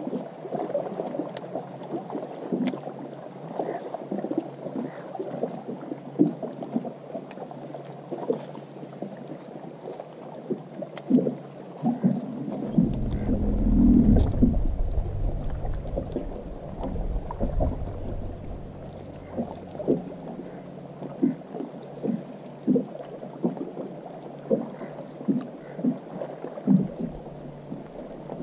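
Small waves lapping and slapping against the hull of a bass boat, a stream of short irregular knocks. A low rumble swells for a few seconds about halfway through.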